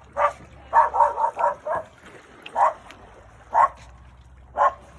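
Dog barking: one bark, then a quick run of five, then three single barks about a second apart.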